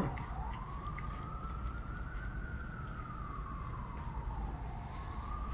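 A siren wailing: one tone that slowly rises in pitch, falls, and begins to rise again near the end.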